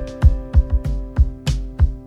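Background music: held keyboard chords over a steady drum beat.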